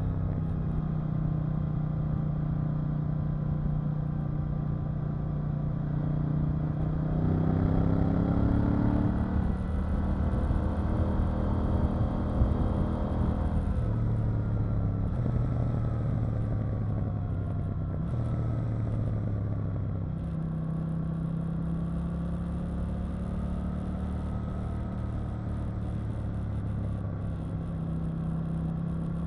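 KTM 890 Duke R's parallel-twin engine running under way, its note rising as the bike accelerates a few seconds in and then stepping up and down in pitch several times through the rest of the ride. A single sharp click is heard near the middle.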